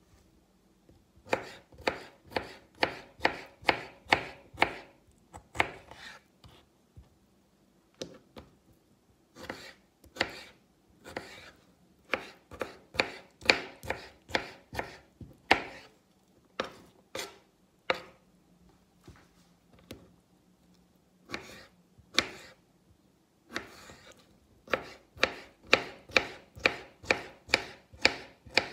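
Kitchen knife slicing pickled cucumbers on a cutting board: runs of sharp knocks, about two to three a second, as the blade strikes the board, with short pauses between runs.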